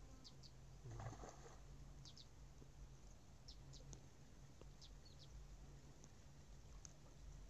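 Near silence: faint outdoor ambience with scattered short, high bird chirps and a brief soft rustle about a second in.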